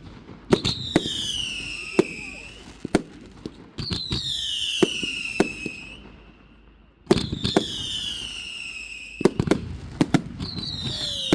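Fireworks going off: four whistles, each falling in pitch over about two seconds, mixed with many sharp bangs and cracks.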